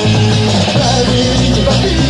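Punk rock song playing loud and steady: a rock band recording.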